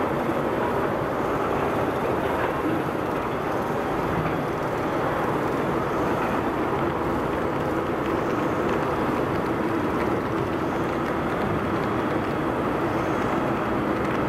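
Biscuit production line running: a steady mechanical drone from the conveyor and oven machinery, even in level throughout.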